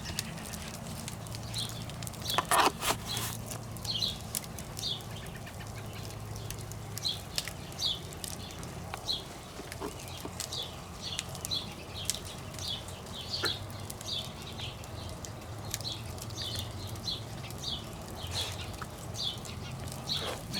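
Campfire crackling with scattered sharp pops, one louder crack about two and a half seconds in, while a bird chirps over and over, about one or two short chirps a second, above a steady low hum.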